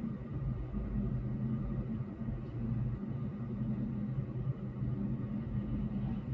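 Low, steady rumble of city road traffic, muffled by window glass.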